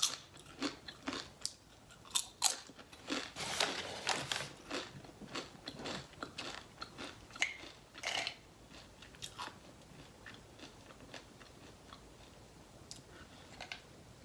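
A Chipotle tortilla chip being bitten and chewed, with a run of sharp crunches that thins out after about eight seconds to faint, sparse chewing.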